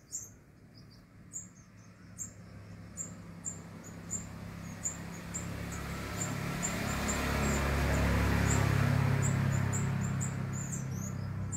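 Sunbirds giving short, thin, very high chirps, one or two a second, as the parents call their fledgling back to the nest. Under them a low rumble swells to its loudest about eight seconds in and eases off again.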